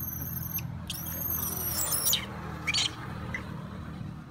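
A young macaque squealing: very high-pitched, drawn-out squeals that glide up sharply and drop off at the end. A long one ends about half a second in, a second runs from about one to two seconds in, and a short one follows near the three-second mark.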